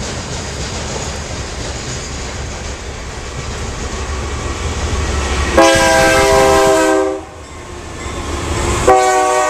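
BNSF diesel freight locomotives rumbling louder as a double-stack container train approaches and passes. The locomotive's air horn sounds two long blasts, a chord of several tones: the first about halfway through, lasting about a second and a half, and the second starting near the end.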